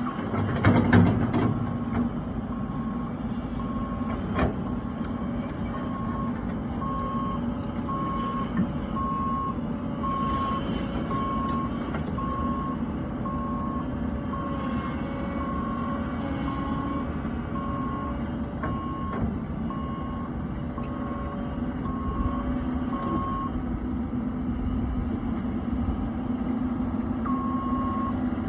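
Kobelco hydraulic excavator's diesel engine running under load while its travel alarm beeps steadily, about once a second, as the machine tracks. The beeping stops for a few seconds and starts again near the end, with an occasional clunk from the machine.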